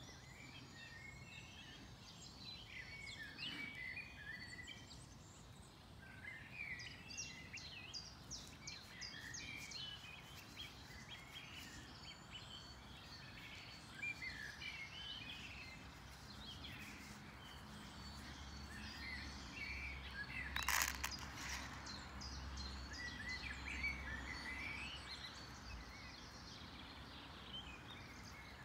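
Small songbirds chirping and twittering steadily in the background, with one sharp click about two-thirds of the way through.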